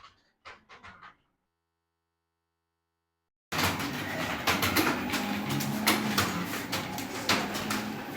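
A few faint breathy sounds, then silence; about three and a half seconds in, a roomful of computer keyboards starts clattering as several people type at once, over a low steady hum.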